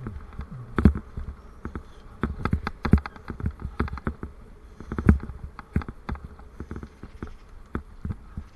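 Bicycle and its mounted camera rattling and knocking while riding over rough ground: irregular sharp knocks over a low rumble.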